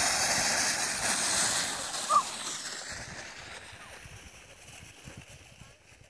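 A wooden toboggan hissing and scraping over crusty snow. The hiss is loud for the first two seconds or so, then fades away over the next few seconds.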